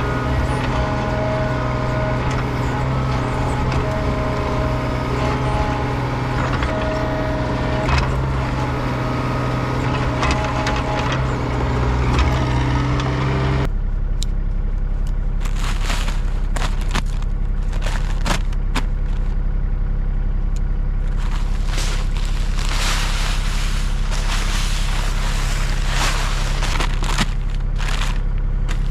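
An engine running steadily throughout. About 14 seconds in the sound changes abruptly: a lower, steady engine note continues with scattered knocks and scrapes over it.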